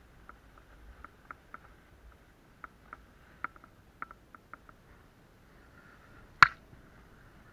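Handling noise on an action camera: a run of light, irregular clicks, then one sharp knock about six seconds in, as a gloved hand meets the camera.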